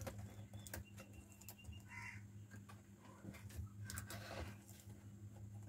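Faint scattered clicks and taps of a replacement laptop keyboard being pressed down by hand into its frame to seat it.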